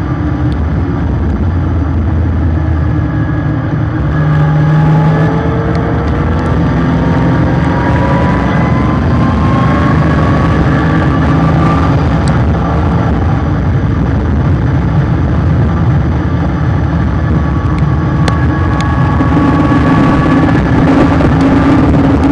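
A car's engine with heavy road and wind noise, picked up by a bumper-mounted camera at speed. About four seconds in, the engine note starts climbing steadily for several seconds as the car accelerates, then holds.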